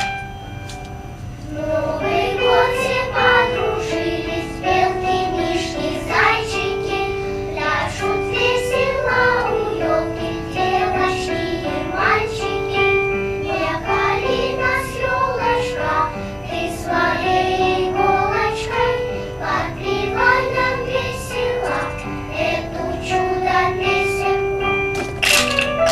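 Children's choir singing a song in unison, the sung melody of held notes with accompaniment, fuller from about two seconds in.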